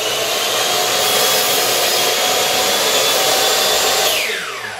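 DeWalt chop saw (miter saw) motor and blade running at full speed with a loud, steady whine as the blade is brought down through a piece of scrap wood. About four seconds in the trigger is released and the motor winds down, its pitch falling.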